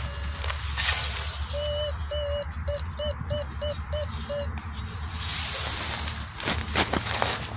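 A metal detector beeping over a rusty iron rebar target: a run of about nine electronic beeps, the first two longer, then shorter and quicker. Dry grass rustles and the iron is handled around the beeps.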